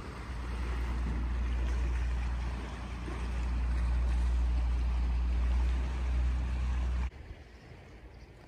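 Low, steady drone of a boat engine, with a hiss of wind and water over it. It cuts off suddenly about seven seconds in, leaving quieter outdoor ambience.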